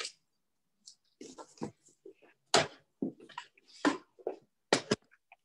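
Handling noise as a handheld camera and a small canvas are moved about on a wooden easel: irregular knocks, clicks and rubbing, with two sharper knocks about halfway and near the end.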